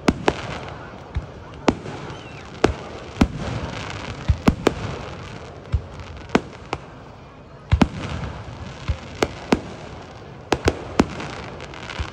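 Aerial fireworks shells bursting overhead: about twenty sharp bangs at irregular intervals, some in quick pairs and triplets.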